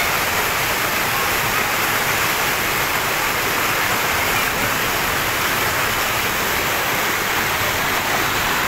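Floodwater rushing fast down a street: a loud, steady rush of churning water.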